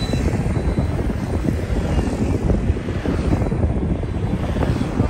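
Steady low rumble of a moving vehicle, with a rushing hiss over it.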